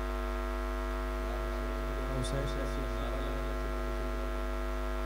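Steady electrical mains hum from the sound system, a low drone with many steady overtones above it.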